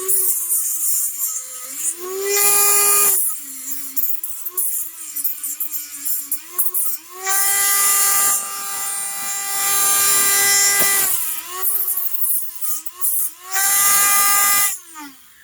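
Dremel rotary tool with a cutoff wheel whining at high speed, cutting down plastic body posts. Three times the wheel bites into the plastic and the sound turns to a harsh grinding: briefly about two seconds in, for about four seconds in the middle, and again near the end.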